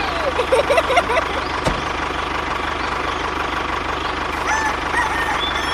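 Tractor engine running steadily with an even low throb, with chickens clucking in the first second and birds chirping near the end.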